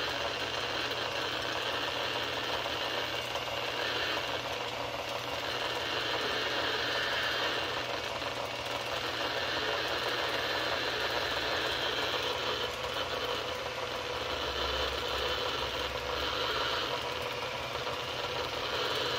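Two-stage rotary vane vacuum pump running steadily under a dense crackle of Geiger counter clicks that swells and eases several times as the pancake probe is moved around a homemade electron-beam tube. The high count rate is X-rays given off where the beam strikes the tube's aluminium-foil target.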